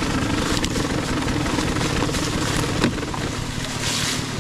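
KTM 150 XC-W two-stroke dirt bike engine running steadily at low revs, with one short knock a little under three seconds in.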